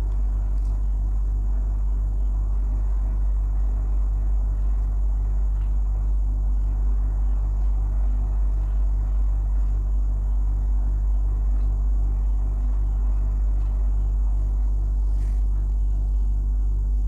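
A steady low rumble with an even throb about three times a second, like a motor or fan running.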